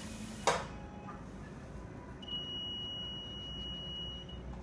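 Tabletop semi-automatic powder and granule filling machine cycling: a sharp click about half a second in, then a steady high-pitched tone for about two seconds, over a low steady hum.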